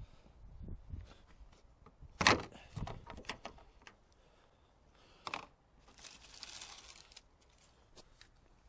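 Hand tools and car trim parts being handled: scattered clicks and knocks, the loudest a sharp knock about two seconds in, with a short scraping rustle about six seconds in.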